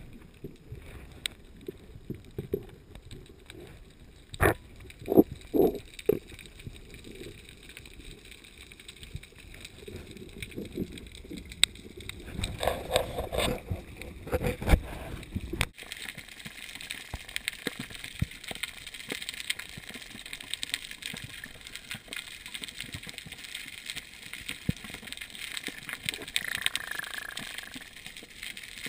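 Underwater sound through a camera's waterproof housing: scattered dull knocks and water movement against the housing, then, from about halfway in, a steady fine crackling of the reef water.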